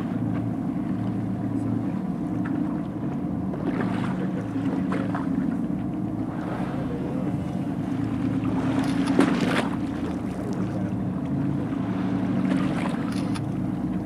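A boat's engine running steadily under wind and water noise, with a brief loud rushing burst about nine seconds in.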